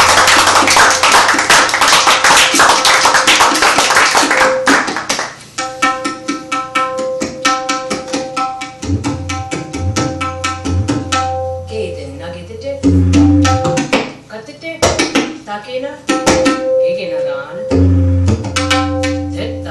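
Tabla played solo: a fast, dense run of strokes for about the first four seconds, then separate strokes on the dayan ringing at a steady pitch, with deep bass strokes from the bayan coming in several times.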